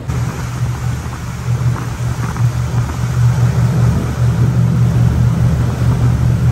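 A motor yacht's engines running steadily underway, a low drone with the rush of water from the hull and wake.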